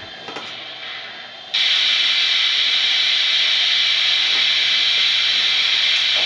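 Steady loud hiss of steam from a model steam locomotive's sound system. It switches on suddenly about a second and a half in, over a fainter hiss with a few light clicks.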